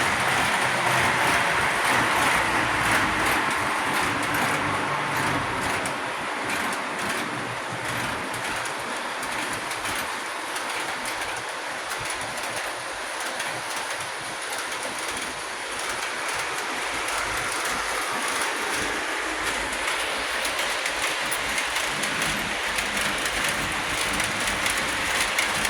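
Lionel O-gauge Alco PA model diesel train running on three-rail track: wheels clattering over the rail joints under a steady motor hum. It grows quieter through the middle and louder again toward the end.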